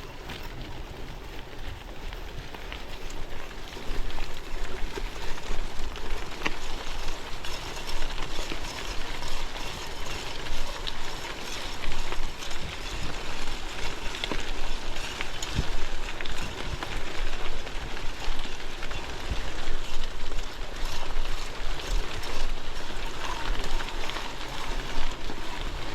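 Gravel bike tyres rolling over damp gravel, a continuous rumbling crunch with many small stone ticks and rattles, getting louder about four seconds in, mixed with wind noise on a chest-mounted action camera.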